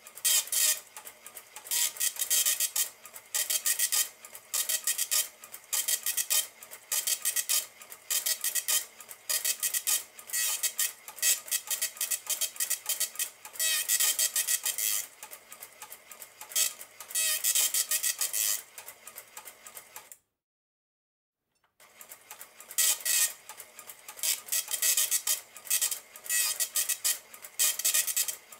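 Elka 803-02 cash register's built-in dot-matrix printer printing a report: short bursts of mechanical buzzing about a second apart, broken once by about a second and a half of complete silence roughly two-thirds of the way through.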